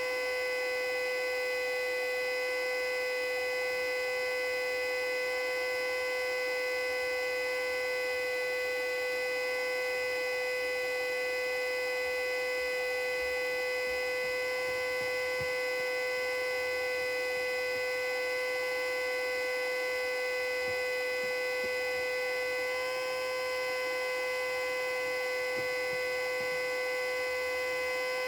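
Custom-built Federal Signal Model 2A siren held at full speed, sounding one steady, unwavering tone. Near the end the pitch and level sag slightly for a moment, then the tone holds again.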